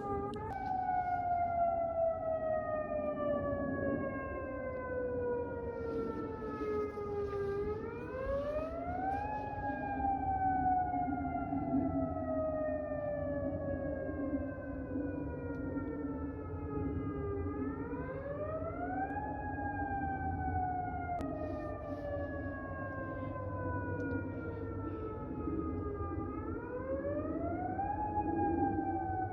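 Outdoor tornado warning siren wailing in a test. Its pitch slowly falls for about seven seconds and then quickly rises again, three times over.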